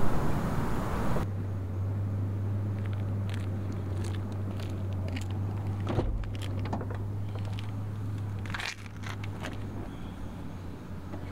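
A rushing outdoor noise cuts off about a second in, giving way to a steady low hum of a car while keys jingle and the door is handled. There are scattered light clicks, a sharper knock about six seconds in and a louder rattle near nine seconds.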